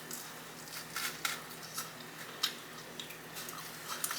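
Close-miked chewing of chicken wings: soft wet mouth sounds with a scattering of sharp, irregular clicks.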